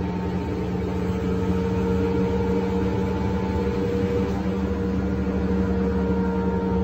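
Scania K310 articulated bus's rear-mounted DC09 five-cylinder inline diesel, heard from inside the passenger cabin, running at a steady pitch.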